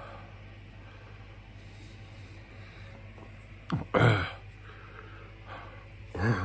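A man gasping twice from the burn of a superhot chili pepper, loud voiced gasps about four seconds in and again near the end, over a steady low hum.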